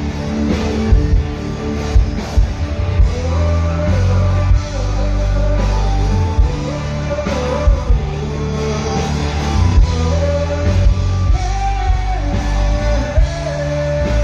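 Live rock band playing loud through a PA: drum kit, bass and electric guitars with keyboards. A man sings a wavering melody over it from about three seconds in.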